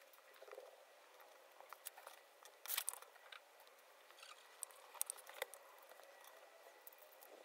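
Faint scattered clicks and rustles of small plastic Playmobil toy parts being handled and fitted together, with a brief cluster of louder clicks about three seconds in.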